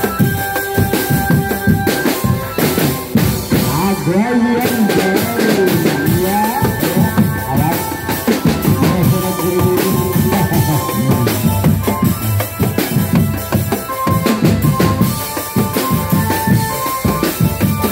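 Drum music: a drum band's bass drum and snare beating fast and steadily under a melody of held high notes, with a wavering, gliding line of a voice or instrument from about three to eight seconds in.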